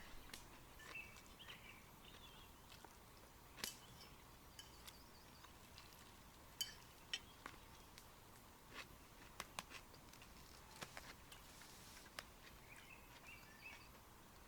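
Quiet outdoor ambience with faint bird chirps now and then and a handful of sharp, scattered clicks.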